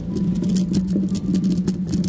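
Rapid, irregular clicking and clacking of a Bluetooth smart 3x3 speed cube as its layers are turned fast during a timed solve. A steady low hum runs underneath.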